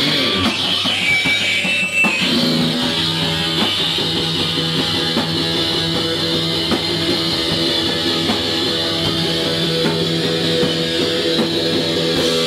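Live band playing loud heavy rock, led by an electric guitar holding steady chords, with light hits underneath.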